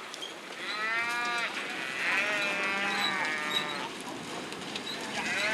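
Cattle bawling: two long, fairly high calls that rise and fall, one starting about half a second in and another around two seconds in, with a third beginning near the end.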